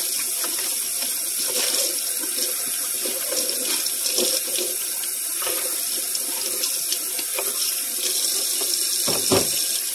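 Kitchen faucet running steadily into the sink while dishes are washed by hand, with a few light knocks and clinks of the dishes. A duller thump comes near the end.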